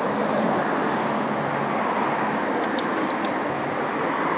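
Steady street traffic and road noise during a bicycle ride, with a few faint clicks about three seconds in.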